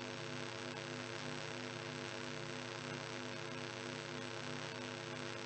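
Steady electrical mains hum with a layer of hiss from the open public-address system, with no other sound over it.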